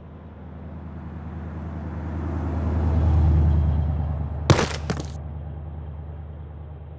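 Box truck's engine running as it drives past, swelling to loudest about three seconds in and then fading away. About halfway through, a short clatter of sharp knocks cuts through it.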